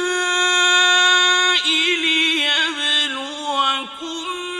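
A male voice chanting Quranic recitation in the melodic tajweed style. It holds one long note for about a second and a half, then breaks into quick ornamented turns and settles onto a lower sustained note.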